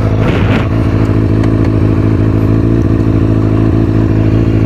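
A 2003 Kawasaki ZX-6R's 636 cc inline-four idling steadily through an aftermarket MotoGP-style exhaust, with a loud, raw, muscle-car-style idle. A brief rustle or scrape comes about half a second in.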